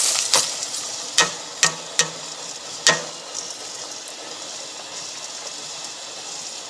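Pot of boiling water with green mung beans just added, bubbling with a steady hiss. A few sharp knocks on the stainless steel pot come in the first three seconds.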